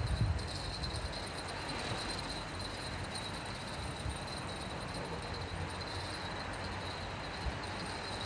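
Steady outdoor background hiss with a faint, even high-pitched whine, and a few low thumps at the start.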